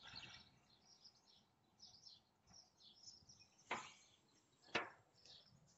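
Near silence with faint, scattered bird chirps and two brief sharp clicks about a second apart, a little past the middle.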